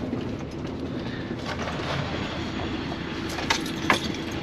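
Farm tractor's engine running steadily, with two sharp knocks near the end.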